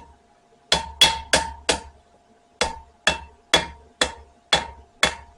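Hand hammer striking hot spring steel on an anvil, straightening the forged knife's handle. A quick run of four blows about a second in is followed by six steadier blows about two a second, each with a short metallic ring.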